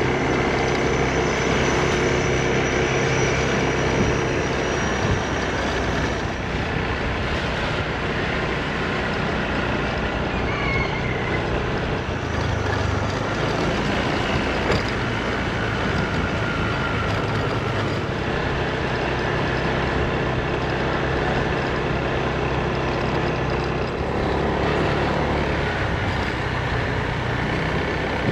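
Small motor scooter engine running while under way, with wind and road noise rushing over the microphone. The engine pitch shifts every so often as the throttle changes on steep roads.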